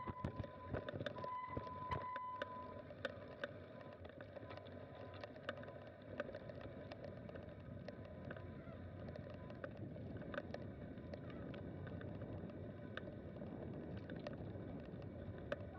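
Mountain bike rolling over a dirt forest trail: steady tyre noise with frequent small clicks and rattles from the bike. A thin, steady high tone sounds for the first couple of seconds.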